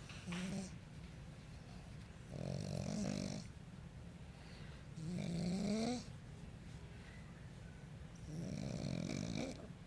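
A pug snoring while asleep: three long snores about three seconds apart, the middle one rising in pitch, after a short snort-like sound just under a second in.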